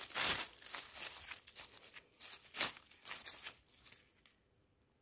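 Dry fallen leaves rustling and crunching as a gloved hand rummages through the leaf litter and pulls up a mushroom: several short rustles, the loudest at the start.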